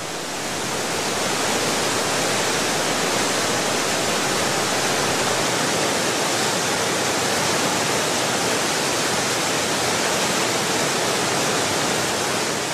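Steady rush of a large waterfall, the Nile pouring through Murchison Falls. It swells up at the start and eases down near the end.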